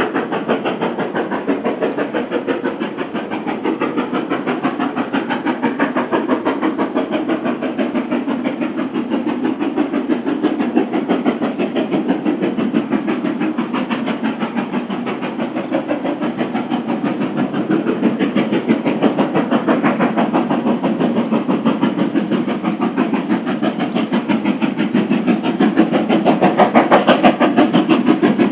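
Steam locomotive working hard up a steep gradient, its chimney exhaust beating in a fast, regular rhythm with steam hiss, growing a little louder near the end. A few sharp clicks come near the end.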